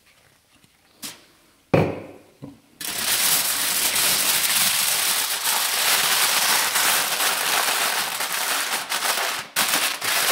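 Aluminium foil crinkling and crackling steadily as a foil packet is folded and crimped shut by hand, starting about three seconds in. Before that, a short sharp knock on a wooden board.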